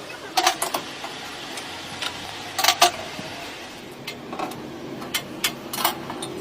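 Scattered sharp clicks and knocks, several coming in quick pairs, over a faint steady background hum.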